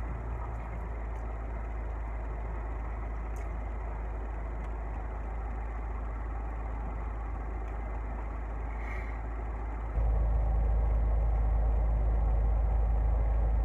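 A steady low rumble with a deep hum, like an idling engine, which steps up noticeably louder about ten seconds in.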